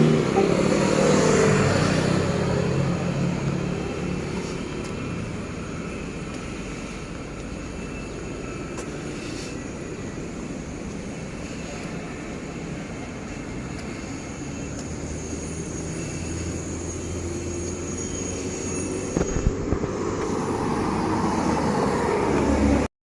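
Vehicle noise, loud at first, easing off, then swelling again near the end before cutting off suddenly.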